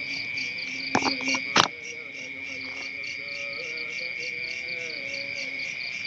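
Night insect chorus of crickets: a steady high drone with a faster pulsing trill above it, about five pulses a second. Two sharp knocks about one and one and a half seconds in are the loudest sounds.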